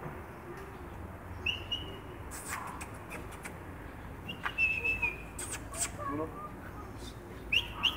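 A person whistling short, clear notes to call a tame goldfinch, three times, the middle one longest. Between the whistles come sharp kissing or clicking mouth sounds.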